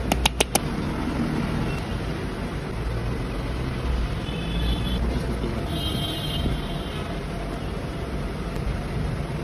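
Steady low rumble of road traffic, with a quick run of four or five sharp clicks about half a second in.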